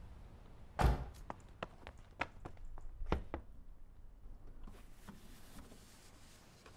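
A car door shutting with a heavy thud about a second in, followed by a scatter of light knocks and footsteps over the next two seconds or so.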